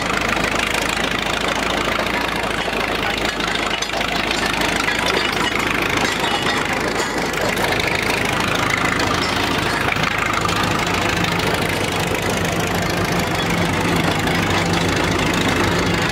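Engine of an old yellow heavy-equipment machine running steadily, with a low hum that becomes stronger in the last few seconds.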